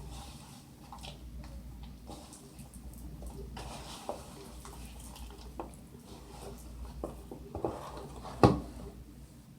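Scattered light clicks and knocks of a bowl and utensils being handled while water is added to a flour mixture, with one louder knock near the end.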